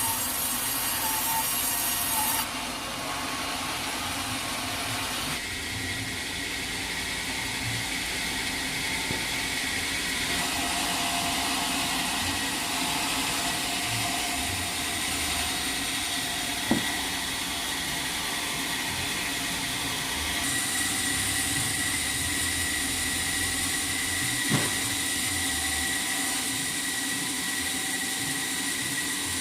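A sawmill saw runs steadily through a teak log, a continuous cutting noise with steady tones over it, its character changing abruptly a few times. Two short sharp knocks sound about halfway through and again near the end.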